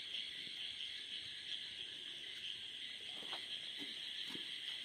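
Crickets chirring steadily in a night-time chorus, with a few faint scattered knocks from about three seconds in.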